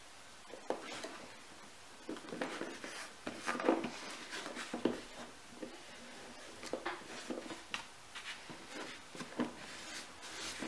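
Paper and cardboard being handled: scattered light rustling, rubbing and small taps as glued paper is pressed down and smoothed onto the cardboard.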